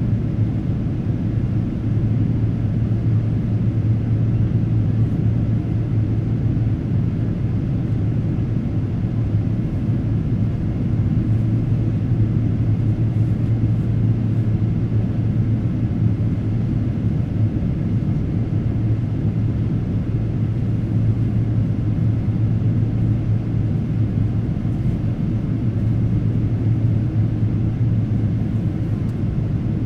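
Steady drone of a Boeing 777-300 airliner in flight, heard inside the passenger cabin: engine and airflow noise with a strong low hum, unchanging throughout.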